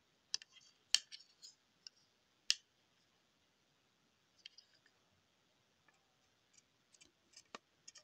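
Quiet, scattered clicks and taps from closed folding knives being handled in the hands, bunched in two groups with a few sharper clicks.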